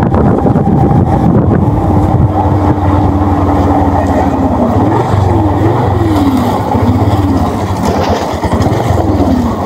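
Motorcycle engine running under way as the bike rides along a street, its pitch holding steady at first, then rising and falling about once a second as the throttle is worked, over a rumble of wind and road noise.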